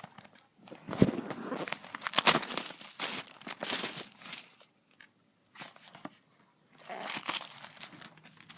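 Plastic wrapping on a card game box crinkling and tearing in irregular bursts as it is pulled off, pausing briefly midway.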